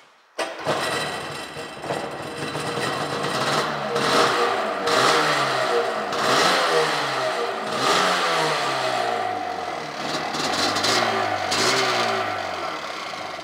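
1995 Sea-Doo XP jet ski's Rotax two-stroke twin engine firing up about half a second in and running on the stand, revved several times so its pitch rises and falls, then shutting off near the end.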